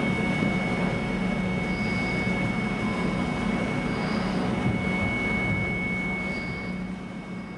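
Steady mechanical drone with a constant low hum and a thin high whine, fading out near the end.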